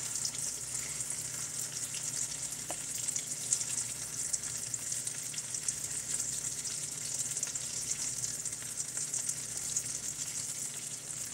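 Bluegill and crappie fillets sizzling steadily in a hot nonstick skillet, with light scrapes of a silicone spatula lifting them out. The burner has just been switched off, so the fish is frying on the pan's remaining heat.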